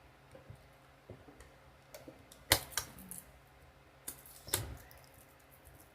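Scattered clicks and taps of a small product box being handled and pried open, with the sharpest snaps about two and a half seconds in and around four and a half seconds.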